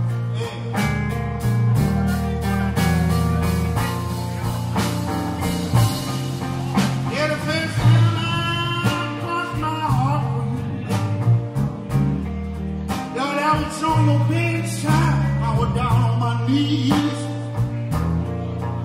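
Electric blues band playing live: electric guitars, bass guitar and drum kit, with a lead line of bending, sliding notes in the middle.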